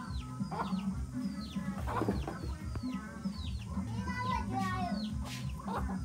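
Background music with a steady beat and a repeating bass line, with chicken clucking about four seconds in.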